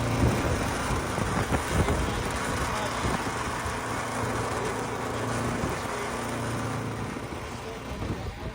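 A motor vehicle's engine running: a steady low hum under dense rumbling noise. The hum fades about seven seconds in.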